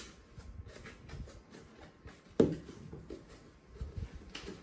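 Cardboard shipping box being opened by hand, its taped flaps pulled apart with scattered scraping and rustling of cardboard. One sharp snap about two and a half seconds in is the loudest sound.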